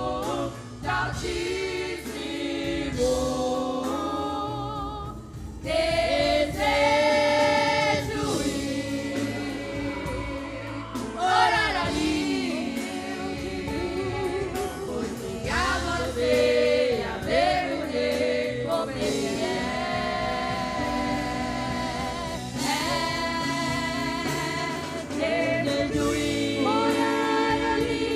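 Women's gospel vocal group singing together, with long held notes and sliding pitches.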